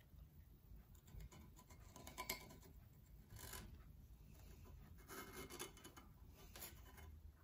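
Faint scratching of a steel scribe drawn along the edge of an intake gasket, scoring an outline onto the cast-iron port face of a Ford E7 cylinder head in a few short strokes.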